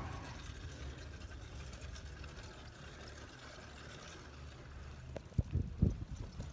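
Low, steady rumble of wind and road noise on a handheld phone's microphone while cycling over a block-paved path, with a few dull thumps near the end.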